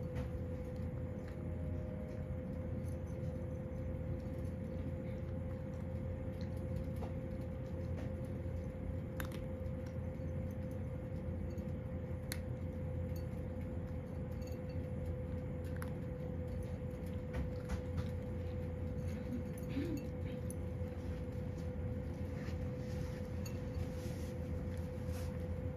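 A cat crunching dry kibble from a ceramic bowl: irregular small crunches and clinks of the food against the bowl, over a steady low hum in the room.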